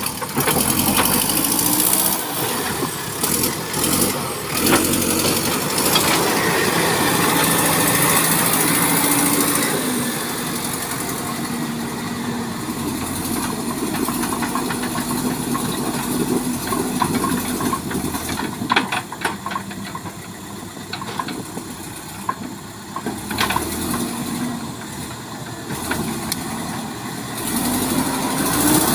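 A vehicle engine running, its pitch rising and falling, over a steady rushing hiss.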